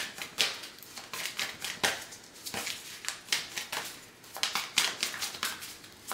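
Tarot cards being shuffled and handled: irregular crisp clicks, snaps and rustles of cardstock.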